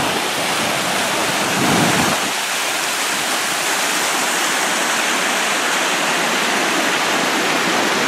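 A small creek running fast over rocks: a steady, even rush of water.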